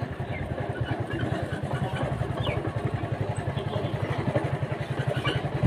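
Motorcycle engine running steadily, an even rapid pulsing throughout.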